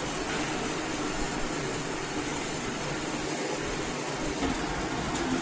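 Steady machinery noise from a running hot-air popcorn production line: motors, fans and conveyors making an even, unbroken whir with no distinct beat.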